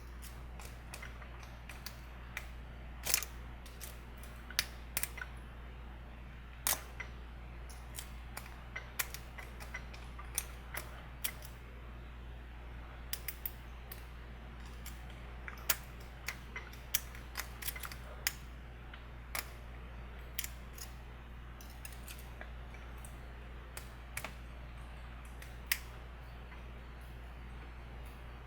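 Sparrows Octo Rake pick being raked through the pin tumblers of a Master Lock padlock under tension: irregular small metallic clicks and scrapes, a few louder than the rest, over a steady low hum.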